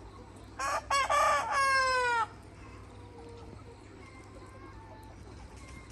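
A red Mía rooster crows once, starting about half a second in. The crow is a short broken opening and then a long held final note that drops in pitch as it ends. Hens cluck faintly in the background.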